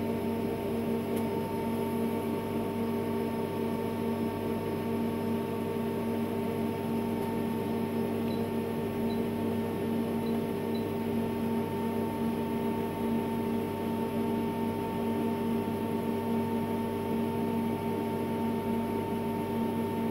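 Brother HS-300 wire EDM machine running with a steady hum of several constant tones while its Y axis travels during edge-finding touch-off.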